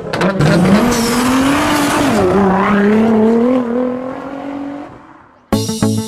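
Car engine revving as an intro sound effect: the pitch climbs, dips about two seconds in, then climbs slowly again and fades out by about five seconds. Plucked-string music starts abruptly near the end.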